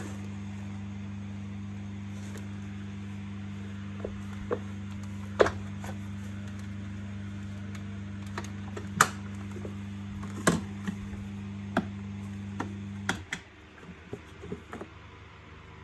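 Steady low electrical hum with scattered sharp clicks and taps, as of parts being handled; the hum cuts off about thirteen seconds in.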